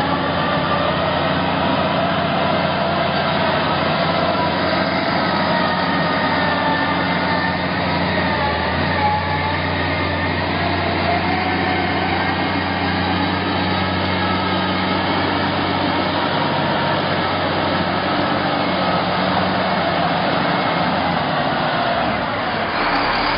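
Engine of a heavy logging machine running steadily, with wavering higher-pitched tones over the low engine note.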